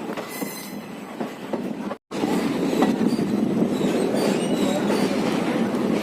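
Passenger express train running on the track, heard from aboard: a steady rumble of wheels on rails with scattered clicks and a high wheel squeal less than a second in. The sound cuts out for an instant about two seconds in, then the rumble carries on louder.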